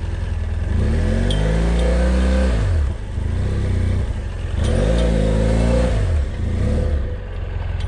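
BMW F800GS motorcycle's parallel-twin engine pulling away at walking pace, revving up and easing off twice between a steady low running note.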